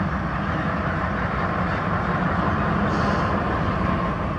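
Steady rush of running water as a muddy toy truck is washed, with no clear rises or breaks.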